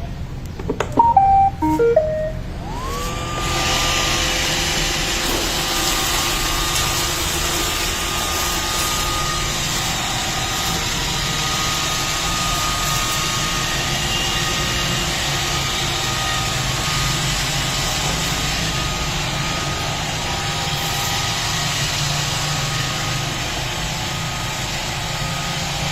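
iRobot Roomba 527 robot vacuum starting a cleaning run: a short series of beeping notes about a second in, then its motors whine up to speed and run steadily with a constant vacuum hum.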